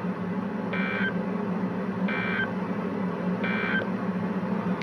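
Three short bursts of the EAS/SAME digital data tone, the end-of-message code that closes a NOAA Weather Radio alert, about a second and a half apart through a weather radio's speaker. A steady low hum runs underneath.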